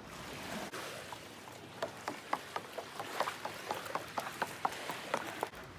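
Footsteps of shoes going down wooden steps: a run of short irregular knocks and clicks on the boards, starting about two seconds in, over a steady hiss.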